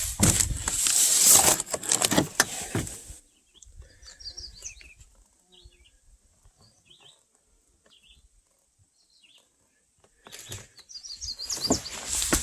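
Small birds chirping in short, high calls, several scattered through a quiet stretch and a cluster near the end. These come between two louder bursts of rustling and crackling noise, one at the start lasting about three seconds and another starting shortly before the end.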